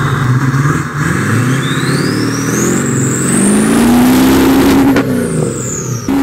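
Turbodiesel Duramax V8 revved hard with its exhaust run into a ship horn: the engine note climbs for about three seconds with a rising turbo whistle. About five seconds in the throttle drops off and the whistle falls away.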